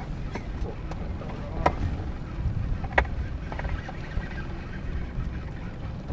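Steady low rumble aboard a small fishing boat on open water, with two sharp knocks about a second and a half apart.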